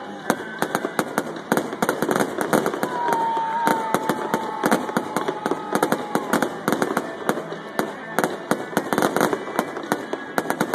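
Fireworks display: aerial shells bursting in a rapid, continuous run of bangs and crackles. A thin whistle gliding slightly downward runs for about two seconds, starting about three seconds in.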